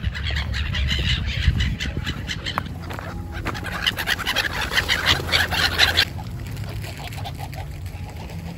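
A flock of gulls calling, many overlapping squawks at once, breaking off abruptly about six seconds in.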